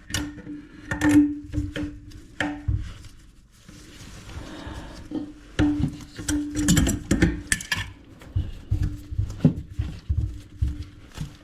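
Hand tools and plastic and metal toilet-tank parts knocking and clicking against each other in irregular clanks as old fill-valve and flush parts are worked loose, over a steady low hum.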